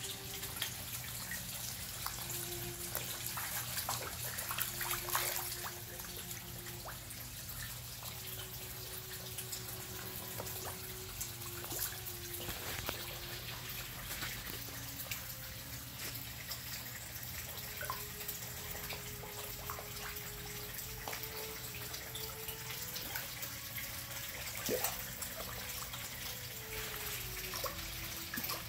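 Koi pond water trickling, broken by many small sharp splashes as koi feed on floating pellets at the surface.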